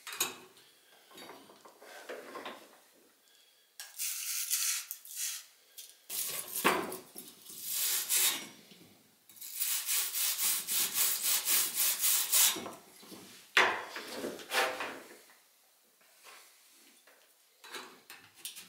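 Copper pipe end of a finned baseboard heater element being scrubbed by hand: dry rasping rub strokes in several short bursts, the longest a quick even run of about four strokes a second in the middle.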